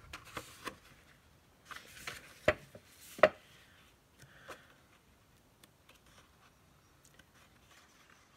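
Sheets of double-sided patterned paper being handled and flipped over: a scatter of sharp taps and paper rustles in the first half, the loudest about three seconds in, then only faint light handling.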